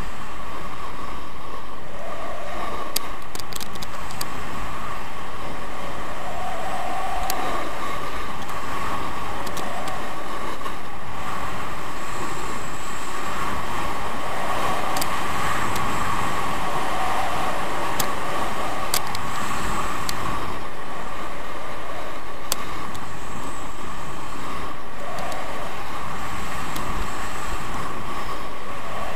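Skis sliding and scraping over groomed snow on a continuous downhill run: a steady rushing, scraping noise with a few faint clicks.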